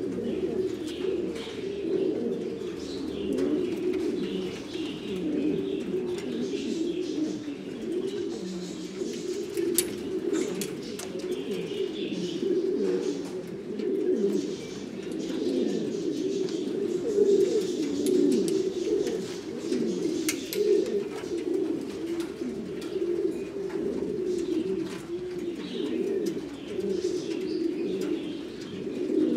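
Buchón gaditano pouter pigeons cooing without a break, deep rolling coos overlapping one another, with faint higher chirps and a few light clicks over the top.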